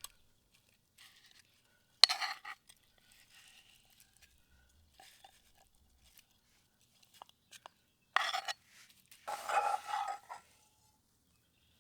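Utensils clinking and scraping against a camp plate: a sharp clink about two seconds in, then two short bouts of scraping and clatter near the end.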